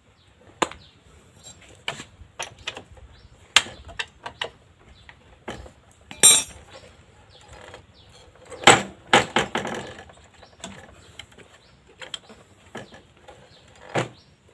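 Metal clicks, knocks and clanks of motorcycle front fork legs being handled and pushed up into the fork clamps, with a sharp clink about six seconds in and a longer rattling scrape around nine seconds.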